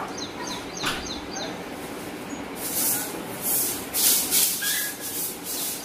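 Grass broom sweeping a tiled floor: dry swishing strokes, about two a second, louder from a couple of seconds in.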